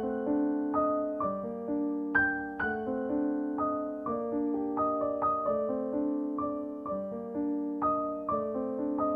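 Background piano music: a slow, gentle melody of struck notes, each fading away after it sounds.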